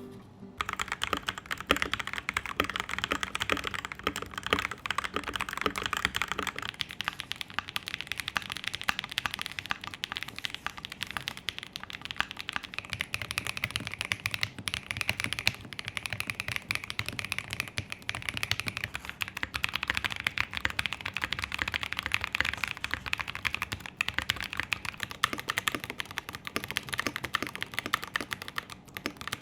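Continuous fast typing on a mechanical keyboard: a dense run of key clacks and bottoming-out taps, with a change in the sound's character about a quarter of the way through.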